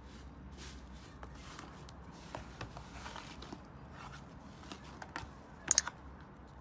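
Hands squishing, tearing and stretching thick slime in a plastic tub: soft sticky crackling with scattered small clicks, and two sharp snaps close together near the end.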